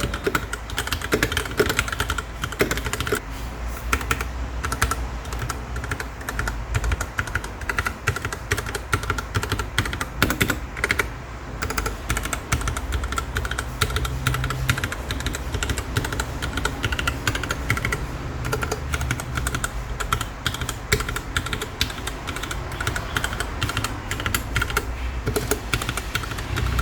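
Keychron K6 mechanical keyboard with Gateron Brown switches in its plastic case, typed on rapidly and continuously: a dense, uneven clatter of key presses over a low steady hum.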